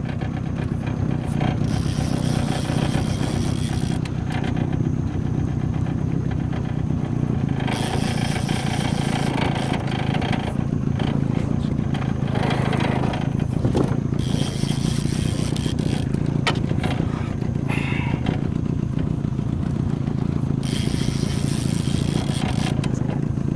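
Small boat's outboard motor running steadily at low speed, a constant low drone, with a rushing hiss that comes and goes over it.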